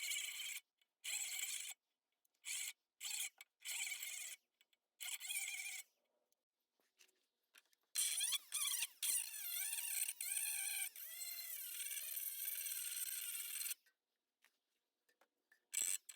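Metal being sanded to prep it for welding on an exhaust hanger: a run of short scraping strokes, then one longer stretch of rubbing with a wavering squeal in it.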